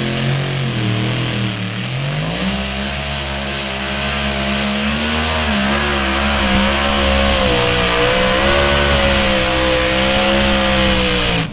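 Two-wheel-drive pulling truck's engine at full throttle under load, dragging a weight-transfer sled. The pitch climbs about two seconds in as it launches, then holds high with small wavers for the rest of the pull.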